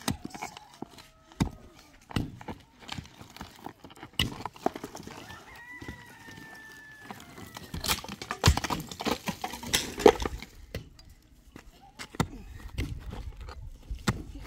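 Pickaxe striking and prying into a packed mud roof: a series of sharp knocks at irregular intervals. About eight seconds in, loose earth and rubble pour off the roof edge for a couple of seconds. A long held animal call, most likely a rooster crowing, sounds faintly near the middle.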